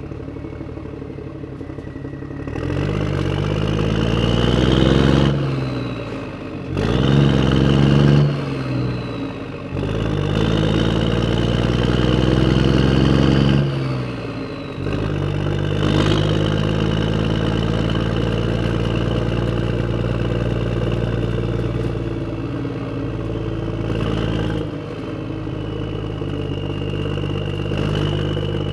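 A vehicle's engine revs up and drops back three times, its pitch climbing and falling over the first half. It then settles into a steady, even-pitched run.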